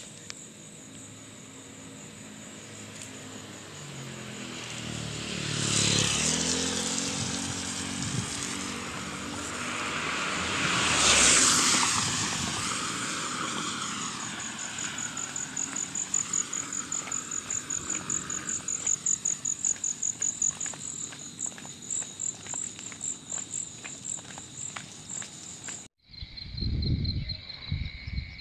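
Two motor vehicles pass on a wet road: the first, about five seconds in, with an engine drone; the second, louder, around eleven seconds in, mostly tyre hiss. Steady high chirring of insects runs underneath, and regular footsteps on the pavement follow.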